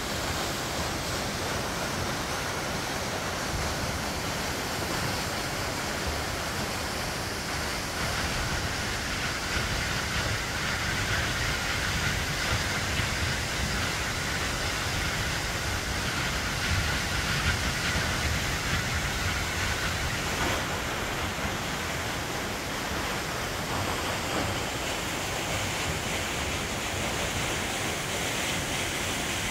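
A waterfall's water rushing, a steady even noise without break.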